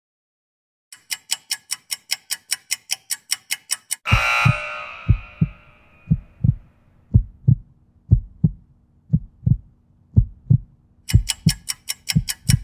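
Interval-timer sound effects. Fast ticking, about six or seven ticks a second, runs through the last seconds of the work interval. About four seconds in, a loud ringing signal marks the switch to rest and fades over about two seconds. A heartbeat thump follows through the rest period, double beats about once a second, and the fast ticking returns near the end as the rest runs out.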